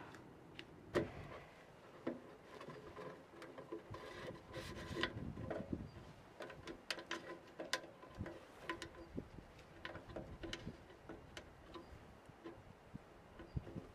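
Stainless steel chimney pipe and fittings of a wood stove being handled and fitted, giving an irregular run of light metallic clicks, clinks and knocks with a faint ringing; near the end, the worm-drive hose clamp at the pipe's base is tightened with a screwdriver.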